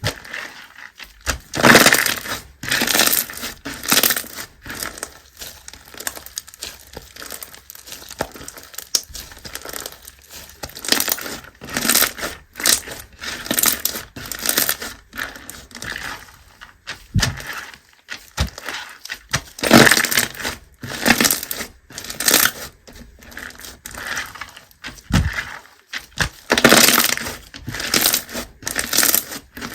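Slime being squeezed, folded and stretched by hand, giving irregular clusters of crackling and popping, with several louder bursts and short quieter gaps between them.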